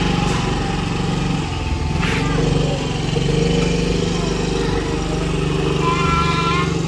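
Small motor scooter engine running steadily as the scooter rides off.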